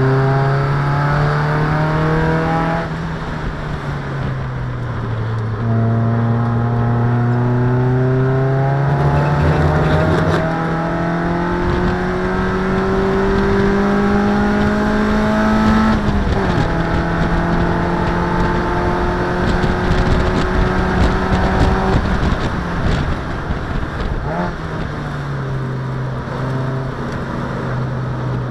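Race car engine heard from inside the stripped cockpit, over road and wind noise. Its revs dip about three seconds in, then climb steadily for over ten seconds. They fall off suddenly about halfway through and drop again near the end.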